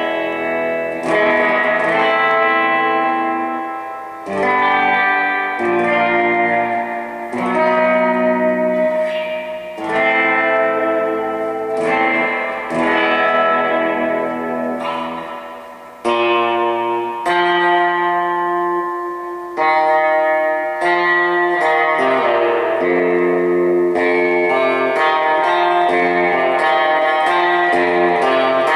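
Electric guitar played through a Fender Bassman-clone tube amp with a tube spring reverb unit: chords and notes that ring out with a reverb tail, changing about every two seconds, then busier, continuous playing over the last several seconds. The EP booster is switched off.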